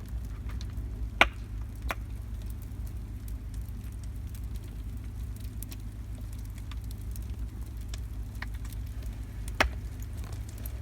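Wood fire burning in the firebox of an outdoor wood furnace, crackling with a few sharp pops, over a steady low rumble.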